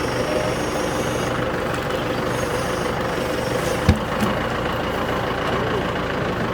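Engine running steadily at a constant speed, with one sharp click about four seconds in.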